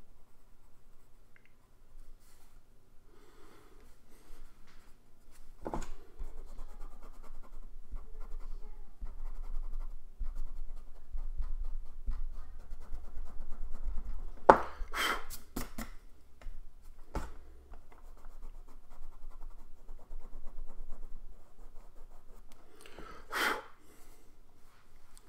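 Pencil scratching across sketchbook paper during shading. Several sharp knocks cut in, a cluster of them about halfway through and another near the end.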